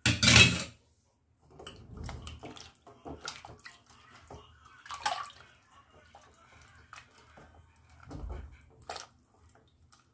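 A hand splashing and sloshing in a steel bowl of buttermilk, gathering freshly churned butter lumps out of the liquid. The sound opens with a loud burst of noise, followed by irregular small splashes and clicks.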